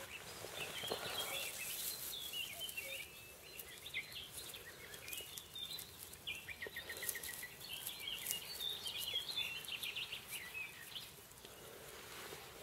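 Songbirds singing and chirping, with a quick run of rapidly repeated notes about halfway through. Soft clicks and rustles from handling the grass stems.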